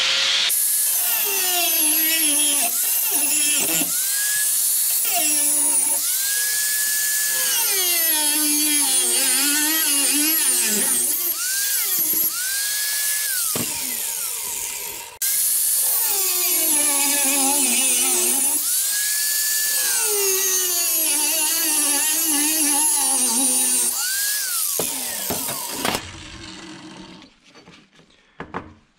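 Corded angle grinder with a cut-off wheel cutting through 1/8-inch steel angle iron, in two long runs with a short break about halfway. The motor's high whine drops in pitch each time the wheel bites into the steel and climbs back when it eases off. Near the end the grinder is shut off and winds down.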